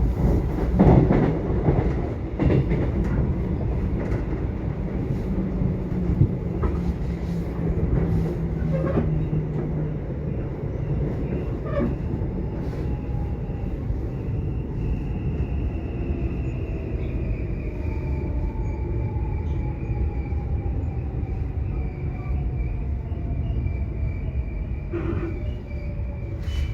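Subway train running: a steady low rumble of wheels on rails with scattered clicks. From about halfway through, a thin high whine slowly falls in pitch.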